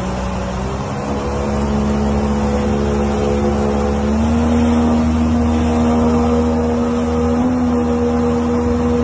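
An engine running steadily under load, its pitch stepping up about one second in and again about four seconds in, over rushing, splashing water.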